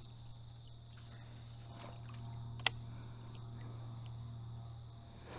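Faint riverside ambience: a steady high insect drone over a low, even hum. One sharp click stands out about two and a half seconds in, with a smaller one at the very start.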